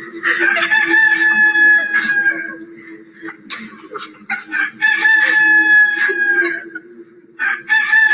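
Rooster crowing three times, each crow about two seconds long and sagging slightly in pitch at the end, the last starting near the end. A steady low drone runs underneath.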